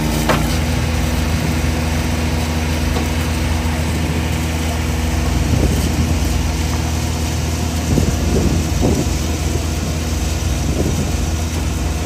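An engine idling steadily.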